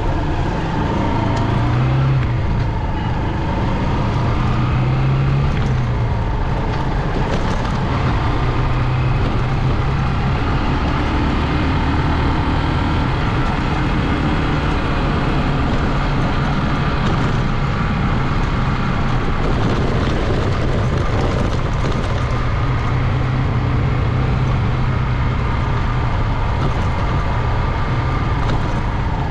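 Honda CG 125 single-cylinder motorcycle engine running steadily under way, its pitch rising and falling a little, over a steady rush of wind.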